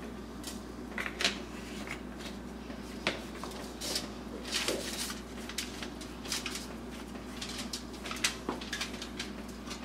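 Aluminium foil crinkling and rustling in irregular short crackles as hands rub seasoning into a whole redfish on a foil-lined baking sheet, over a steady low hum.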